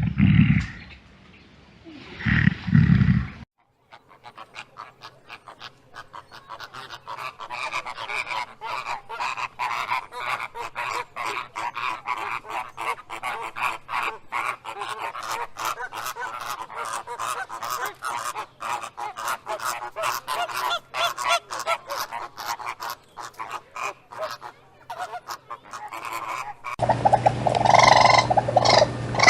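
A large flock of birds calling all at once: a dense, continuous chatter of short honking calls. It opens with two loud, low animal calls, and a different, louder animal sound cuts in near the end.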